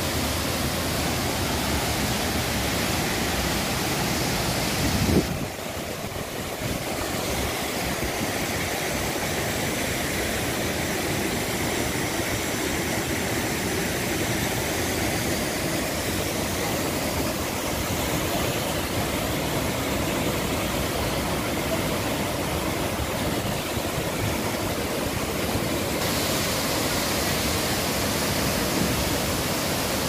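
Waterfall's steady rush of falling water, with a brief thump about five seconds in.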